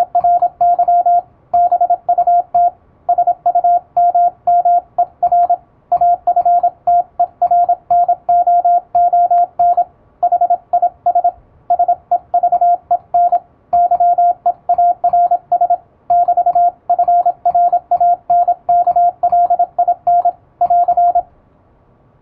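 Morse code sent at high speed with an electronic keyer: a steady mid-pitched beep keyed on and off in rapid dots and dashes, in groups with short pauses between them. It stops about a second before the end.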